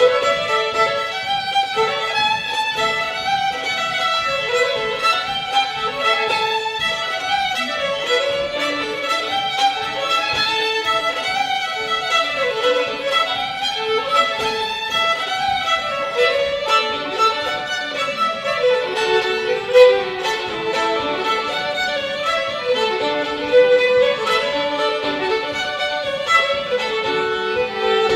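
Two fiddles playing a French Canadian reel together.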